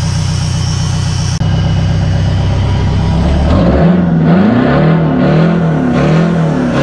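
A Detroit Diesel 8V71 two-stroke V8 running steadily, then its engine speed rising and falling over and over, about every two-thirds of a second, as the throttle is blipped.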